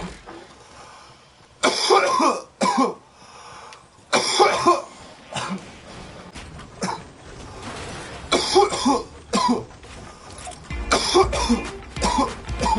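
A boy coughing over and over in short, harsh bouts of one to several coughs, a second or two apart.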